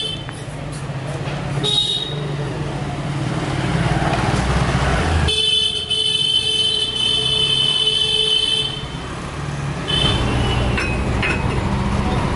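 Motor scooters riding past, engines running, with a vehicle horn held for about three seconds a little past the middle and short horn toots near the start and near the end, over street traffic noise.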